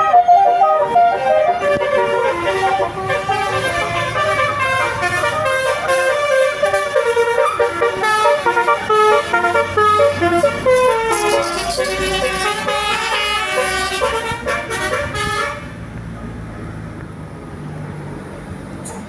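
Bus telolet basuri musical horn playing a quick tune of changing notes, stepping up and down, for about fifteen seconds before it cuts off. A bus engine's low rumble is left near the end.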